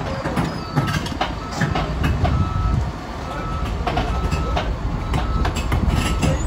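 Tracked Jacbo Woltman drilling rig's engine running as it crawls onto a steel trailer deck, with its travel alarm beeping about once every 0.8 seconds and sharp metallic knocks and clanks from the steel tracks on the steel plates.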